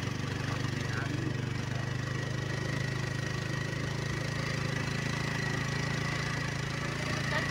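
Motorcycle engine running steadily at low speed with three riders aboard: an even low drone with a faint high whine.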